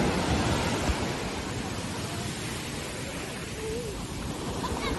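Ocean surf breaking on a beach: a steady rushing wash of noise.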